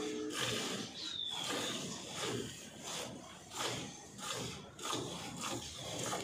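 Hand milking a cow: jets of milk squirting rhythmically into a steel bucket, about two squirts a second.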